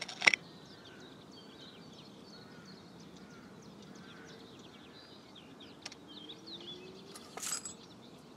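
Small birds chirping and twittering over a quiet outdoor background hiss. A couple of light clicks come right at the start, and a brief rustle near the end.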